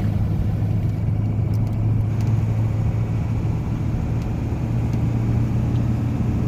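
A car driving at road speed, heard from inside the cabin: a steady low engine hum over even road and tyre noise.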